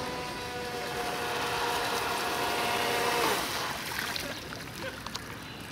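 High-revving brushless inrunner motor (3300 kV, on a 3S LiPo) of an RC speedboat whining at a steady pitch at full throttle over a hiss of water from the hull and wake. The whine fades out about three and a half seconds in.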